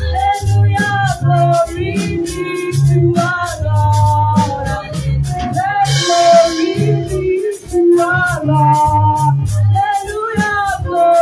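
Live gospel praise music: a woman singing lead into a microphone over a drum kit keeping a quick, steady beat, with a bass line underneath.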